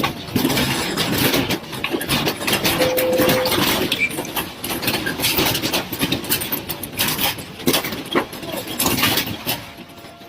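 A building shaking in an earthquake: continuous rattling and rumbling with many rapid knocks, easing off near the end. A brief steady tone sounds about three seconds in.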